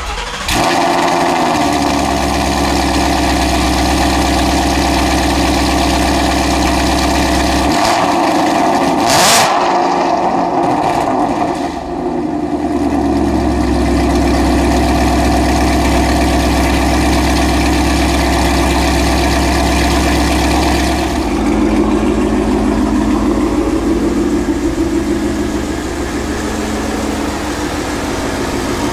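Ford Mustang GT's 5.0-litre V8, breathing through headers and a Corsa Xtreme double X-pipe exhaust, starts up and idles loudly. The pitch briefly wavers up and down about nine seconds in, and the idle note changes about 21 seconds in.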